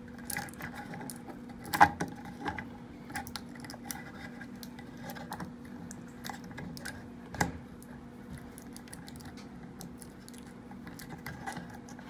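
Fingers picking and tugging at a plastic doorbell-camera housing to pull its cable free: scattered small plastic clicks and scratches, with two sharper knocks, one about two seconds in and one past seven seconds. A faint steady hum runs underneath.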